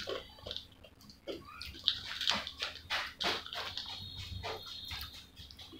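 Close-up wet chewing and lip-smacking of french fries, as a run of irregular short smacks and clicks, with fingers picking fries from a bowl.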